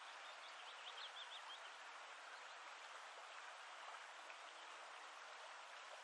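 Near silence: a faint steady hiss, with a few faint high chirps about a second in.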